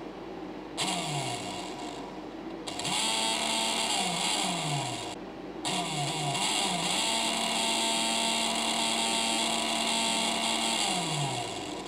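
24-volt mini permanent-magnet DC motor spinning up to a high whine with hiss, stopping and starting again twice, its pitch sliding down as it coasts after each stop. The last run holds a steady pitch for several seconds before winding down near the end.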